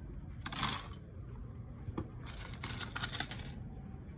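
Loose plastic keyboard keycaps clattering together as they are handled and tipped into a basin. There is a short rush of rattling about half a second in, then a longer run of clicks and rattles near the middle.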